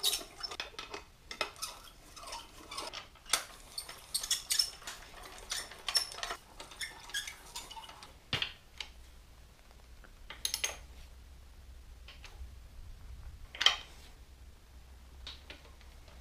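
Metallic clinks and clicks of a socket and speed-handle wrench working the bolts on a Farmall Super M disc-brake housing. They come thick and fast for the first half, then as a few separate clinks.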